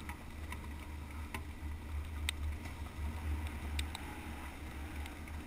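Muffled, steady low rumble of a BMW F800GS parallel-twin engine and wind while riding a gravel track, with a few scattered sharp ticks.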